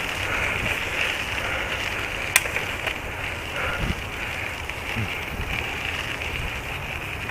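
Steady rumble of a bicycle rolling along a woodland trail, with wind buffeting the microphone and one sharp click about two and a half seconds in.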